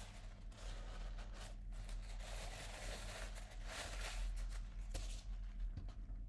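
Faint rustling and handling sounds of paper being moved over a watercolour painting, over a steady low electrical hum.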